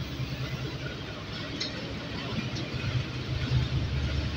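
GEU-40 diesel-electric locomotive's engine running with a steady low rumble as it pulls slowly into the platform, getting louder as it draws alongside.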